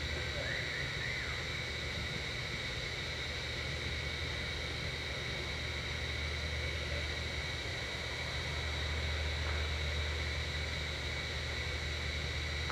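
Steady low hum under a constant hiss with faint high steady tones, with a few faint short chirps about a second in.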